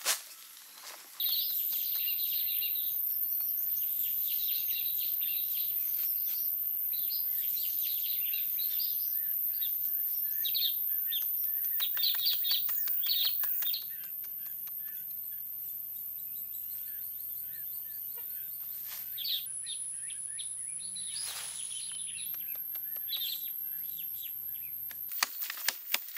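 Birds chirping over a steady high-pitched whine, with a few sharp knocks of a digging blade striking the soil. Near the end the knocks come in a quick series.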